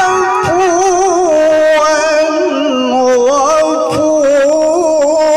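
A male qari reciting the Quran in an ornamented, sung style, drawing out one long melodic phrase. His pitch wavers in quick trills, sinks step by step over the first few seconds, then climbs back up.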